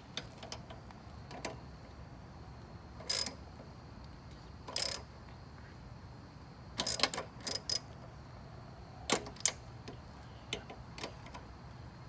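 Scattered metallic clicks and clinks of a wrench working on the mounting bolts of a lawnmower carburetor, with a short cluster of quick clicks about seven seconds in.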